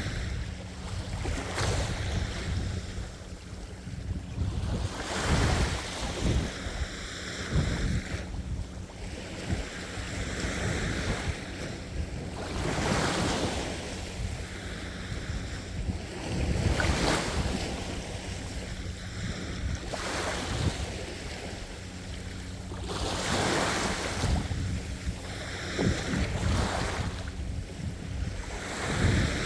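Ocean waves breaking and washing up the shore again and again, each surge swelling and fading every few seconds over a steady low rumble.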